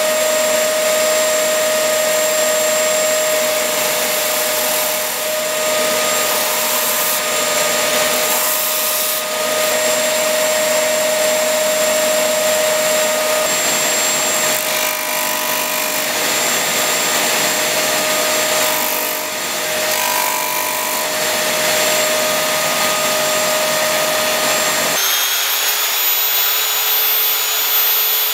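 Electric bench sander running steadily while a wooden tool handle is pressed against it and sanded to an octagonal shape, a constant motor hum under a rasping sanding noise. About three seconds before the end the sound changes abruptly to a thinner, higher-pitched whine of a narrow belt-file sander.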